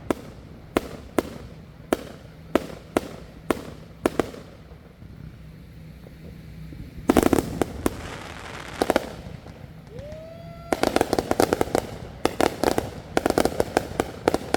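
Consumer fireworks going off: a string of sharp bangs about half a second apart, a short lull, then dense rapid crackling, a brief rising whistle, and another run of quick bangs.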